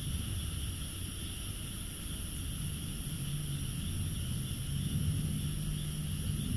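A steady chorus of frogs calling from nearby paddy fields, over a low steady rumble.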